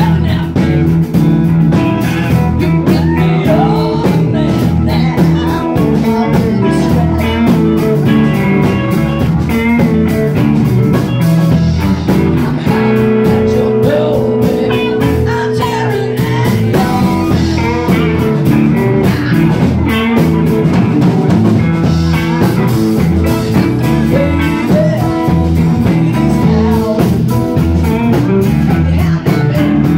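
Live blues band playing: electric guitars, bass and drum kit together in a steady groove, with a long held note about halfway through.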